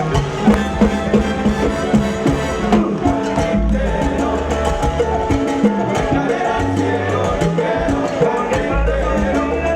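Salsa music: a band playing, with a steady rhythm of percussion strokes over sustained bass notes.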